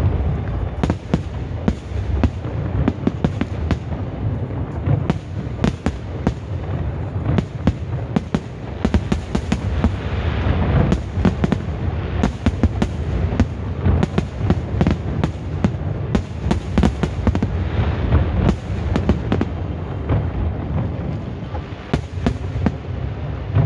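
Aerial fireworks display going off in a continuous barrage: many sharp bangs each second over a steady low rumble of booming shell bursts.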